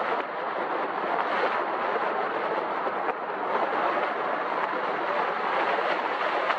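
Steady rushing noise of air and tyres on the road from a moving car, picked up by a camera mounted outside on its roof.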